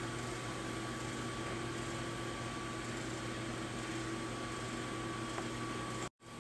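Portable sawmill running steadily: an even machine drone with a constant hum. The sound drops out completely for a moment near the end, then comes back the same.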